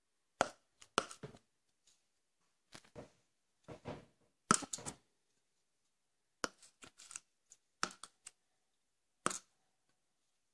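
Plastic cap of a dichlorvos aerosol can knocked hard against the wall to crush cockroaches: about a dozen sharp knocks at irregular intervals, some in quick pairs and clusters, the loudest about halfway through.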